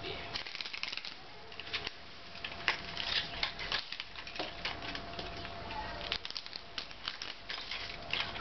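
Paper masking and tape being peeled off painted sheet-metal and crumpled by hand: irregular crackling and crinkling rustles.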